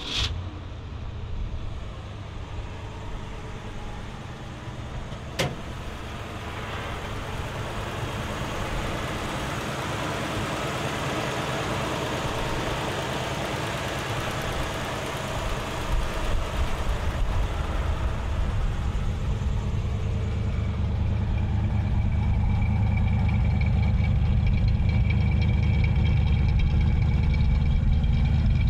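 The original 289 V8 with a four-barrel carburetor in a 1965 Ford Mustang GT, idling steadily. There is one sharp click about five seconds in. The exhaust grows louder toward the end, heard close to the tailpipes.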